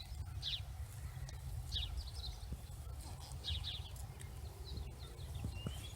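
Faint outdoor ambience of small birds chirping in short, repeated calls over a steady low rumble, with a few faint ticks.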